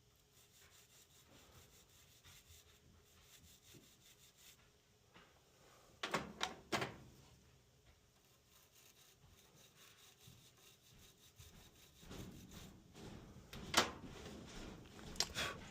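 Small brass wire brush scrubbing a dirty furnace part with quick, light scratchy strokes. A few sharper taps or knocks come in twice around the middle and twice near the end.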